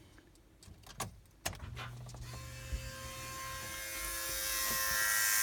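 A couple of clicks as the ignition is switched on, then a high-pitched squeal-buzz from the front of a 2002 Mercedes SLK230 that starts about two seconds in, grows louder and holds steady. Its source is unknown; it is not the auxiliary fan or its control unit, and the owner suspects a valve or solenoid near the bottom of the radiator.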